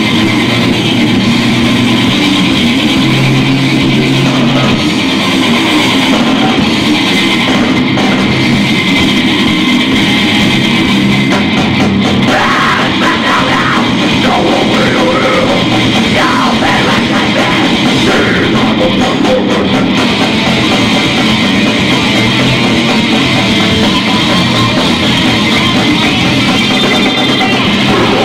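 Melodic death metal band playing live: distorted electric guitars over a drum kit, dense and loud without a break.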